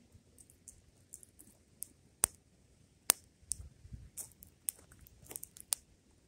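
Fire crackling: irregular sharp pops and snaps, the two loudest a little after two seconds and about three seconds in.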